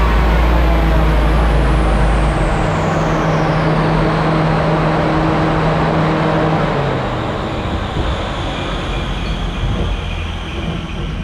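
Classic Mini's Swiftune 1380 cc engine and the rolling road winding down after a power run: the engine note has just dropped off, with a high whine gliding steadily down over the first few seconds. The steady hum cuts out about two seconds in and the rest fades gradually as the rollers coast down.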